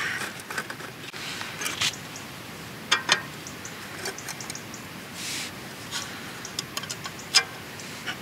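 Scattered clicks and light knocks of camp cooking gear being handled, with two sharper knocks about three seconds in and the loudest click about seven seconds in.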